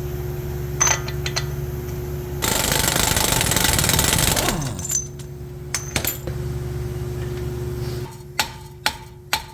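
Power tool, likely an impact wrench, hammering for about two seconds and then winding down, over a steady low hum. A few sharp metallic clicks of tools come near the end.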